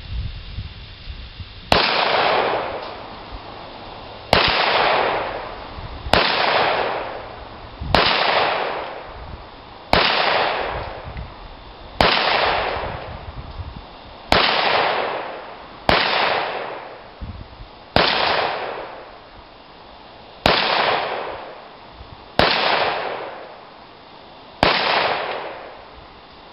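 Glock 17 9mm pistol fired twelve times at a slow, steady pace, about one shot every two seconds, each shot followed by a long echo dying away.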